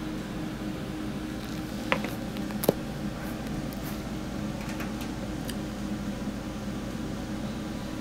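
A steady low hum, with two light clicks a little after two seconds in, from a cordless drill and screws being handled.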